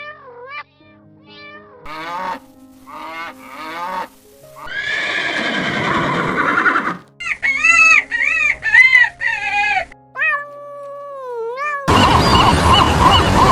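Cat meowing repeatedly over background music: several short meows, a longer rough call about five seconds in, then more meows. A loud rushing noise starts near the end.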